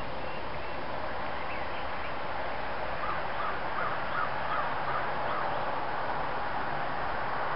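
A steady rushing noise outdoors, with a quick run of short, faint bird calls starting about three seconds in.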